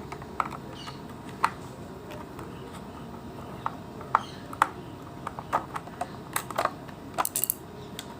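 Irregular small plastic clicks and taps as an electric iron's plastic cover and handle parts are handled and worked loose. The clicks come thicker and faster in the second half.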